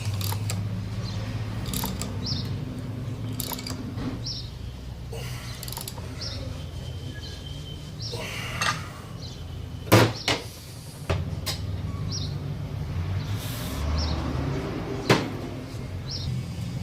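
Workshop sounds of hand work on a car engine: two sharp metal knocks, about ten and fifteen seconds in, over a steady low hum, with short high chirps repeating about once a second.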